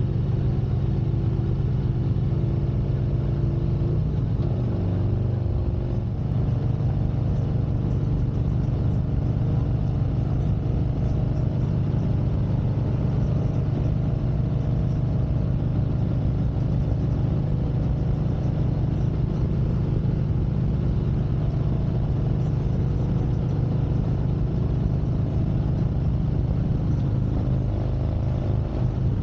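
Harley-Davidson Street Glide Special's V-twin engine running steadily under way, its pitch shifting about five seconds in and again near the end.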